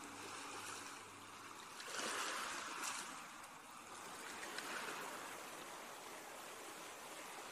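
Recorded Atlantic ocean waves washing in and draining back, a continuous rush that swells noticeably about two seconds in. Faint low humming tones fade out in the first second.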